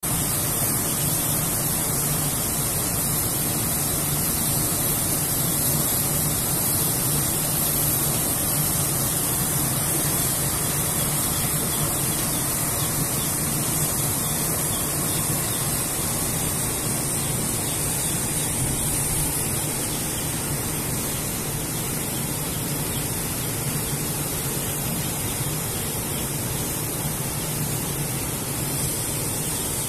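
Steady rushing noise of a poultry-house hot air blower's fan running, with a low hum beneath a hiss, easing a little about two-thirds of the way through.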